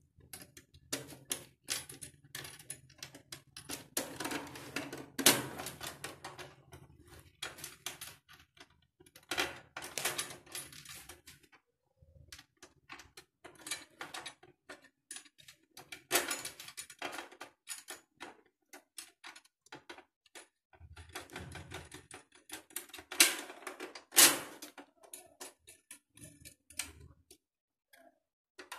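Irregular metallic clicks and rattling from hands working brass connector fittings inside a Jaquar stainless-steel overhead shower body, as the fittings are tightened and the body is shifted and turned. The clicks come in denser clusters at intervals, with a few sharper knocks.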